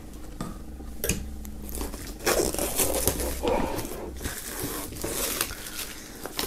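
Plastic shrink-wrap film being torn and peeled off a thin cardboard box, crinkling and crackling in irregular bursts.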